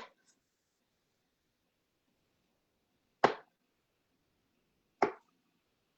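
Small mushrooms being dropped onto a plate: two short, sharp plops, the first about three seconds in and the second a little under two seconds later.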